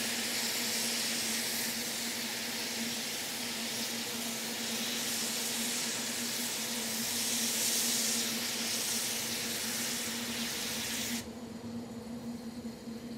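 Double Fairlie steam locomotive Merddin Emrys standing with steam hissing steadily over a steady hum. The hiss cuts off abruptly about eleven seconds in, leaving the hum.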